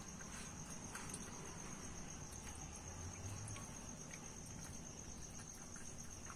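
Crickets trilling steadily in a high, fast pulse, with a few faint clicks.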